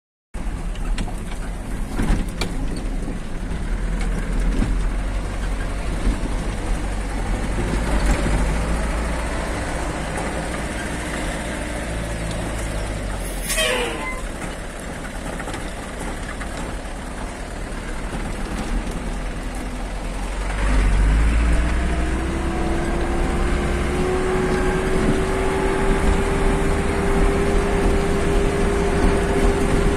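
Vehicle driving on a rough gravel road: steady engine and road rumble, with a brief falling whistle about halfway. About two-thirds of the way through the engine gets louder and its note rises slowly and steadily.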